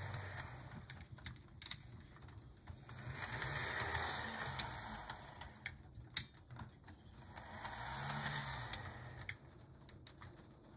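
HO-scale Kato/Stewart F3B model diesel unit running along its track under its own motor, with no sound decoder fitted. Its motor and wheels give a whirring hiss that grows and fades as it travels back and forth, with a few sharp ticks from the wheels on the rail joints. Rain is falling in the background.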